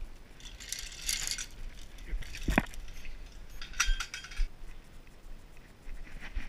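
Chain and padlock on a chain-link gate jangling as the gate is pushed open, then a knock and a few sharp metal clinks.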